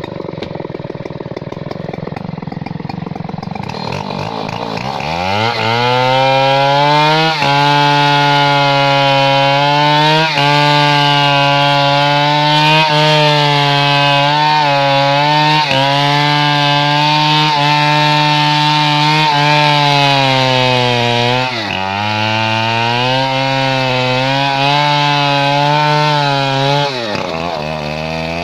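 Stihl 070 two-stroke chainsaw idling, then opened up to full throttle about five seconds in and held high and steady while cutting into the trunk of a standing tree. The revs sag briefly about 21 seconds in and drop back to idle near the end.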